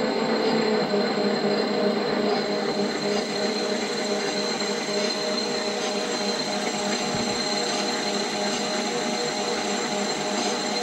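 Benchtop metal lathe running steadily, its motor and drive giving a constant hum with a steady high whine.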